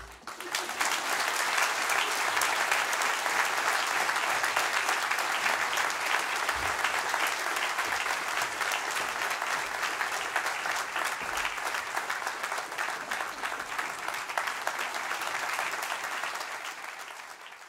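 Audience applauding: dense, steady clapping that thins out gradually toward the end.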